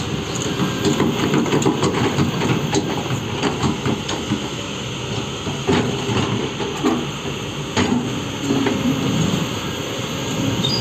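Heavy machinery running, with irregular metallic clanks and knocks over a steady rumble.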